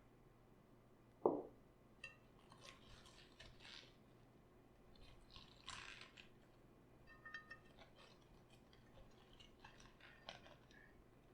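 Raw cabbage crunching and crackling in short bursts as it is handled, with one dull thump about a second in.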